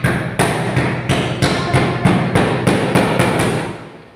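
Rapid hammer blows on the mosque ceiling, about three a second, struck overhead from a stool during ceiling-panel work. The blows stop a little before the end.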